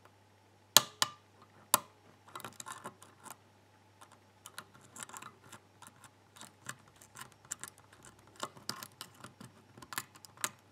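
Irregular light metallic clicks and ticks of a hook pick lifting the pins of a Schlage Everest lock cylinder under tension, with a few louder clicks about a second in and again near the end, as the core sits in a deepening false set.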